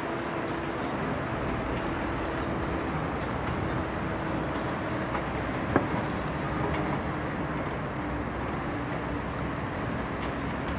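Distant wide-body twin-engine jet airliner on the runway, its engines giving a steady rumbling roar with a faint hum through it, and one sharp click about six seconds in.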